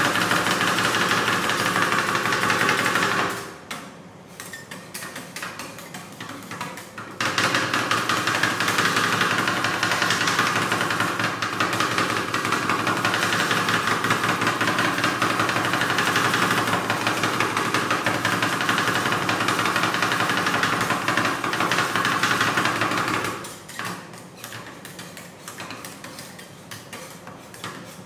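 Metal spatulas chopping rapidly on a steel ice cream cold plate, crushing potato chips into the ice cream mix: a fast, steady clatter of strikes. It eases off for a few seconds about three seconds in, picks up again, and softens near the end.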